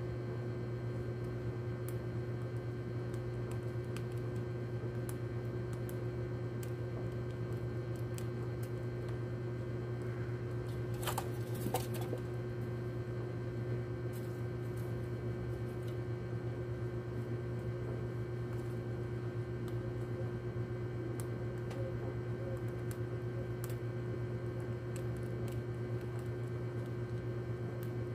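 Steady low hum with faint, scattered small clicks, and a brief cluster of louder clicks about eleven seconds in.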